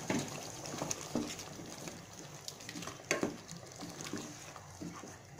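Spatula stirring a thick chicken curry in a nonstick pot, with a few irregular scrapes and knocks against the pot, the strongest about three seconds in.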